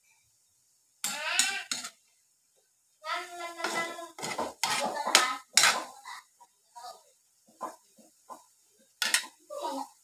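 Metal spatula scraping and knocking against an aluminium wok as diced meat is stirred: several short, sharp strokes in the middle and another near the end.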